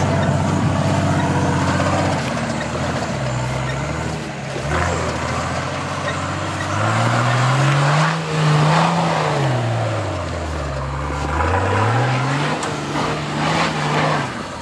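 Nissan Patrol's diesel engine working under load as the 4x4 climbs a snowy slope, its revs rising and falling several times, peaking about halfway through and again shortly before the end.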